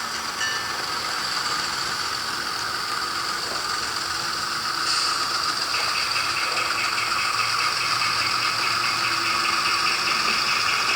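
Model train locomotive's motor and gears whirring steadily. The whir gets louder about five seconds in, and a fast, even clicking joins it soon after.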